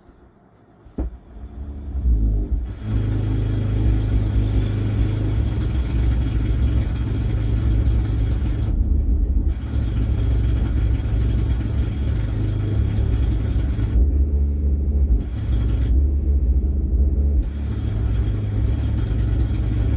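Loudspeaker on a 4440 IC amplifier board putting out a loud, distorted rumbling noise instead of clear sound. It builds up over the first two seconds or so, and its upper hiss drops out briefly a few times. This is the fault under repair: the output comes out cracked even in AUX mode, where the amplifier should be quiet apart from a faint hiss.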